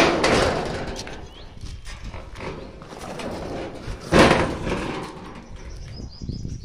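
Sliding bolt on a wrought-iron gate clacking as it is drawn, then a second loud metal clank about four seconds in as the gate is handled, with small rattles in between.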